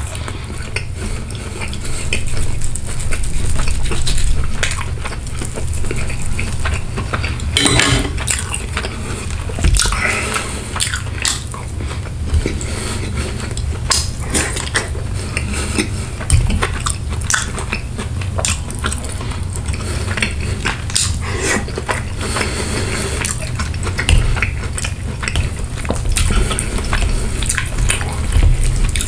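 Knife and fork clicking and scraping against a plate while cutting chicken parmesan and spaghetti, with close-miked chewing of the food in between, over a steady low hum.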